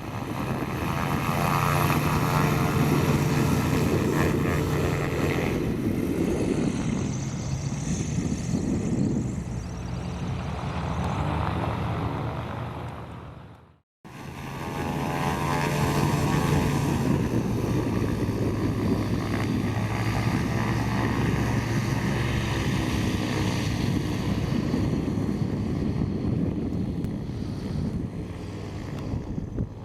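Light amphibious aircraft's propeller engine running steadily with a buzzing drone. The sound cuts out briefly about halfway through, then the engine is heard again.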